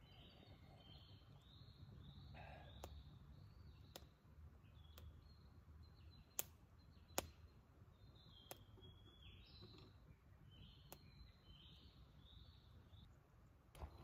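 Small campfire of sticks crackling, with a few sharp pops, the loudest two close together about halfway through. Behind it a bird calls over and over in short, high chirping notes.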